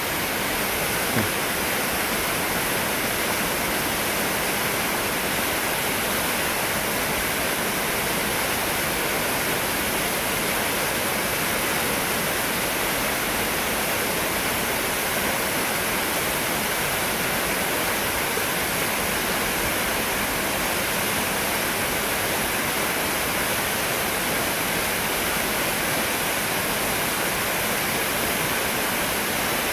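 Steady rush of a fast-flowing river running through rapids.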